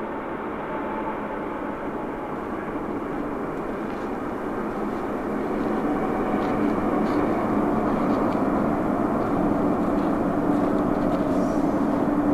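Jet aircraft engines running: a steady rushing noise with a low hum that grows louder over the second half.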